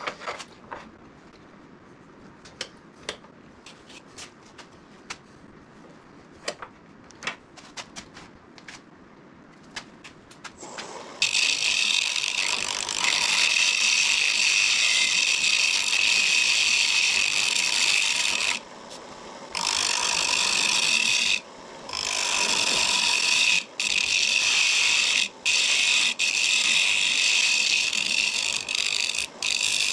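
Scattered clicks and knocks for the first ten seconds or so. Then, about eleven seconds in, a turning tool starts cutting a wooden blank spinning on a wood lathe. It makes a loud, steady hissing scrape, broken by several brief pauses as the tool comes off the wood.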